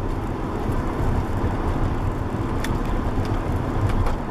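Cabin sound of a Nissan 240SX with a swapped RB20DET turbocharged straight-six on the move: an uneven low rumble of engine and road noise, with a few light knocks about two and a half seconds in and near the end. The car is going over rough road on stiff suspension.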